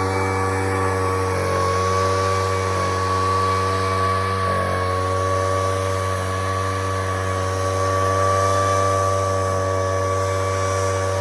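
Poulan Pro backpack leaf blower's two-stroke engine running steadily, with slight wavers in pitch.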